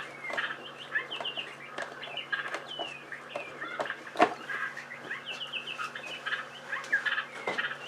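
Birds chirping in quick, repeated short calls over a steady low hum, with one sharp click about four seconds in.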